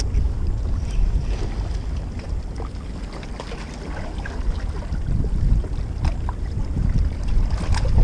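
Wind buffeting the microphone with a low, uneven rumble, and a few small clicks and ticks scattered through it.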